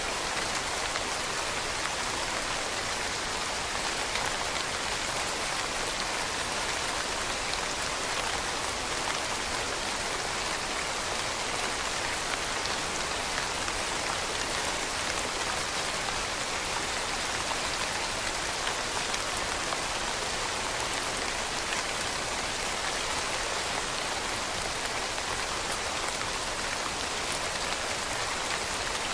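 Steady rain falling on leaves, a dense even patter of drops with no let-up.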